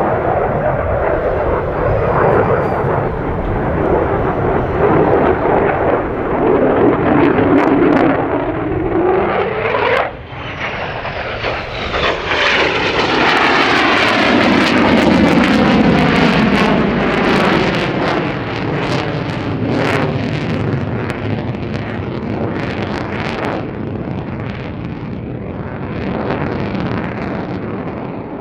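Lockheed Martin F-35A Lightning II's Pratt & Whitney F135 turbofan roaring past, with a falling pitch as it goes by about ten seconds in. A louder, crackling roar follows, easing slowly toward the end.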